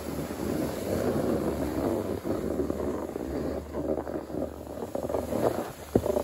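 Snowboards sliding over groomed snow: a steady rough scraping hiss, with wind on the microphone. A brief tap near the end.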